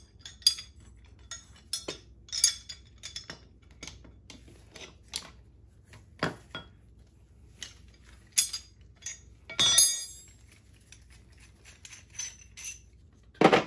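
Scattered clinks and taps of steel wrenches on a metal dowel pin puller as its nut is loosened. A ringing metallic clank comes about ten seconds in, and a sharp knock near the end.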